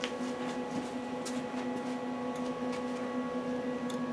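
Steady machine hum with scattered faint, light clicks.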